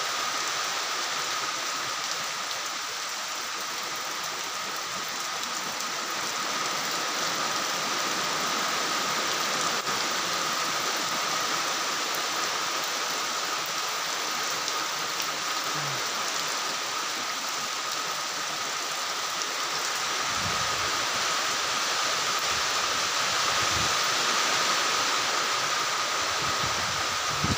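Heavy typhoon rain falling steadily on corrugated metal roofs and waterlogged ground: an even, unbroken hiss.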